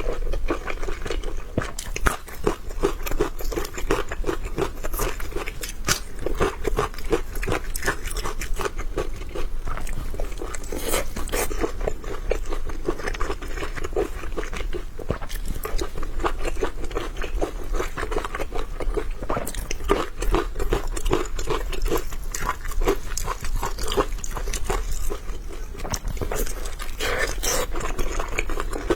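Close-miked eating of big thin-skinned steamed dumplings: continuous biting and wet chewing, with many small irregular mouth clicks.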